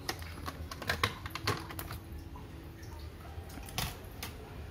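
Plastic clicks and knocks from a laptop's top case being lifted off its base: a run of sharp clicks in the first second and a half, then a louder knock a little before the end.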